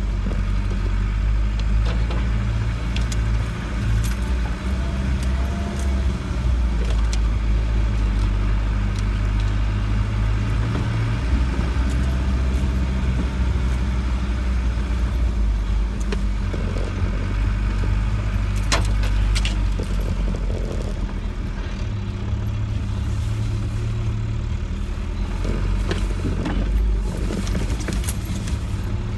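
Land Rover 90 driving slowly along a rutted muddy track, heard from inside the cab: a steady low engine drone that swells and eases with the throttle. Scattered rattles and clicks come from the bodywork and loose items as it goes over the ruts.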